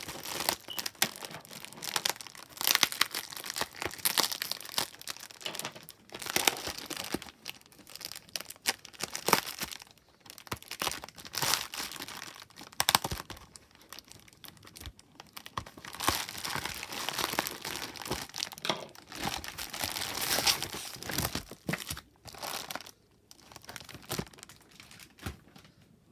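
Packaging being unwrapped by hand: irregular crinkling and crackling with short tearing strokes, in fits and starts with brief pauses.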